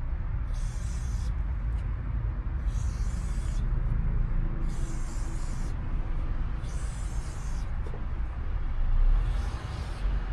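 Aerosol chain lube sprayed onto a motorcycle chain in five short hissing bursts, about two seconds apart, over a steady low rumble.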